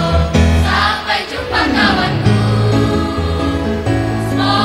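Mixed school choir of boys' and girls' voices singing a lively song, over steady low bass notes that change every second or so.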